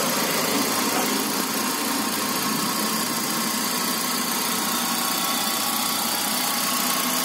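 Kia Cerato's 1.6-litre petrol four-cylinder engine idling steadily and quite smoothly.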